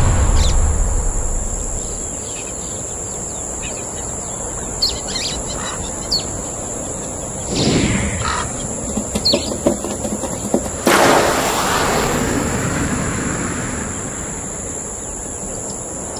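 Birds chirping in short scattered calls over a steady high-pitched tone. A brief whoosh comes near eight seconds, and a broad rush of noise starts suddenly about eleven seconds in and slowly fades.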